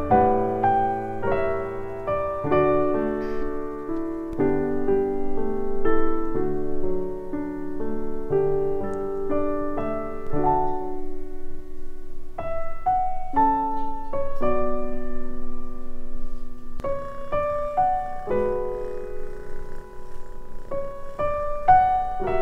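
Solo piano background music: a gentle melody of single held notes, playing more sparsely from about halfway through.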